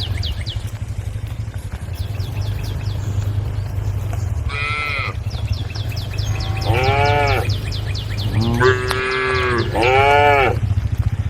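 Cows mooing: four drawn-out calls, each rising and then falling in pitch, the last three close together near the end. A steady low hum runs underneath.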